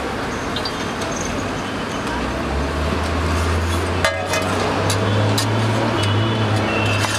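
Roadside traffic noise, with a vehicle engine's low steady hum coming in about two and a half seconds in. A metal spatula clinks once against the iron griddle about four seconds in.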